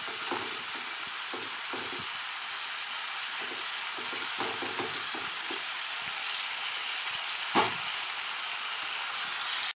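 Chicken pieces frying in a thick spiced masala in a nonstick pan: a steady sizzle, with a spatula stirring and scraping through it now and then and one sharper knock about three-quarters of the way through. The masala has cooked down to where its oil has separated.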